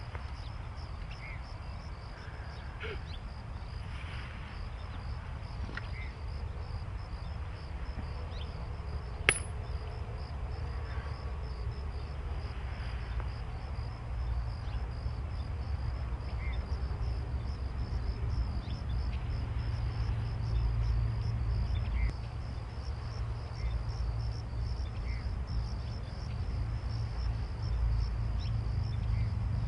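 Insects trilling steadily in a fast, even pulse over a low outdoor rumble that grows louder toward the end; a single sharp click about nine seconds in.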